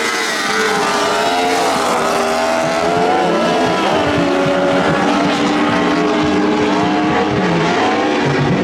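A pack of lightning sprint cars racing on a dirt oval. Several engines are heard at once at different pitches, each rising and falling as the drivers get on and off the throttle through the turns.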